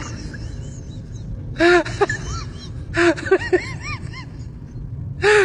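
A baby's crying sounds, the prop of a fake-baby prank, coming in three short bursts of rising-and-falling wails, over the steady low rumble of a moving train carriage.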